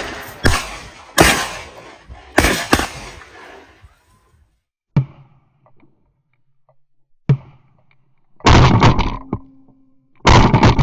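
A string of gunshots: about four sharp shots with echo in the first three seconds, two fainter cracks in the middle, then two long, very loud blasts near the end.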